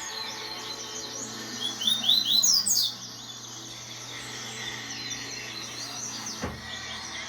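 Papa-capim seedeater singing: a loud burst of quick, rising, whistled chirps about two seconds in, with fainter chirping around it.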